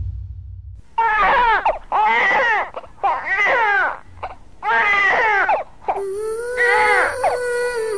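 Infant crying, about five cries in a row, each under a second long and rising and falling in pitch.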